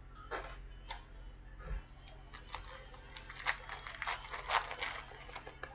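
Foil trading-card pack wrapper being torn open and crinkled in the hands, with a few rustles at first and then a busy run of tearing and crackling over the last few seconds.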